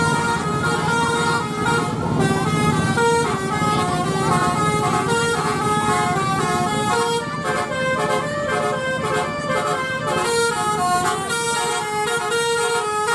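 Bus 'telolet' horn, a multi-tone musical horn playing a tune of quick stepped notes, with a vehicle running underneath.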